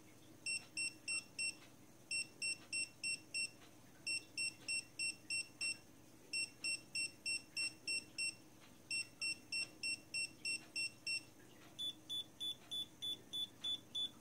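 Dogtrace D-fence 1001 dog-fence collar beeping as the magnet key steps it up through its correction levels. Short high beeps come in groups separated by pauses, each group one beep longer than the last, from four up to eight; the number of beeps gives the shock level that is set. Near the end a run of about nine beeps at a slightly higher pitch marks the control setting.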